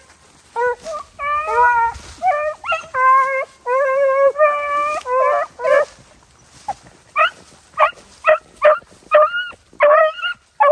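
A pack of beagles baying as they run a rabbit. Long, held bawls follow close on one another and overlap for the first five or six seconds, then give way to a run of shorter chop barks about two a second.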